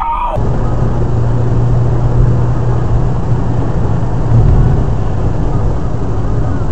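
Car driving, heard from inside the cabin: a steady low drone of engine and road noise.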